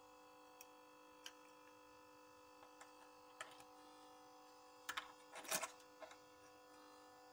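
Faint small clicks and taps of metal tweezers and a soldering iron tip against a charger's circuit board while a shorted diode is being desoldered, over a faint steady hum. The taps come irregularly, with a short cluster about five seconds in.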